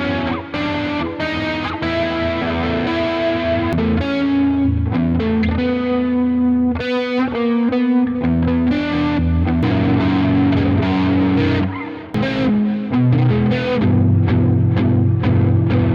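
Distorted electric guitar playing a loud, grungy chord progression with effects, part of a rock-rap production; the sound drops out briefly about twelve seconds in before coming back in.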